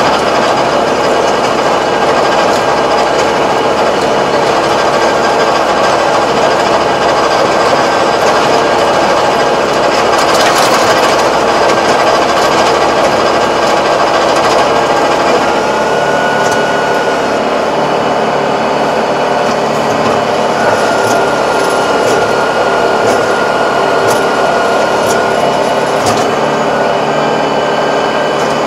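Tractor engine driving a Kobashi rotary tiller as its spinning blades churn the soil, a loud steady mechanical run. About halfway through the sound changes, with a steady high tone coming and going.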